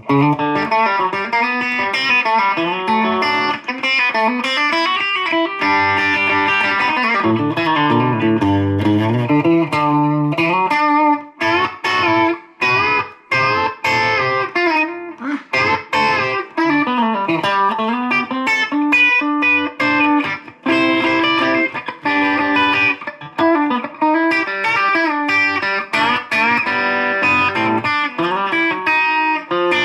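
Electric guitar, a Fender Deluxe Players Stratocaster, played through a Fender Mustang GTX100 modelling amp on its country twang preset. It plays a picked lead line with many string bends, and a choppier run of short notes about a third of the way in.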